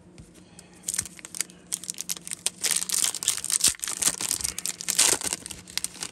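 Foil wrapper of a 2021-22 Upper Deck Series 1 hockey card pack being torn open and crinkled by hand as the cards are worked out of it. The crinkling starts about a second in, is densest in the middle, and dies away shortly before the end.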